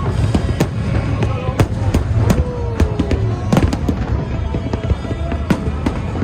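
A fireworks display: rapid, irregular bangs and crackles of bursting shells over a constant low rumble. About halfway through, a falling whistle-like tone sounds.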